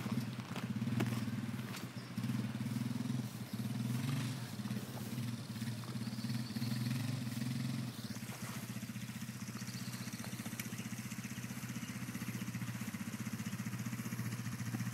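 ATV engine running while pulling a small utility cart, uneven and surging for about the first eight seconds, then settling to a steadier, quieter run as the machine slows.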